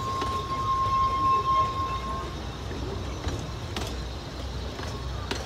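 Ffestiniog Railway narrow-gauge coaches rolling slowly past over the track, with a steady low rumble and a few sharp clicks of wheels over rail joints. A single steady high tone sounds over it and fades out about two seconds in.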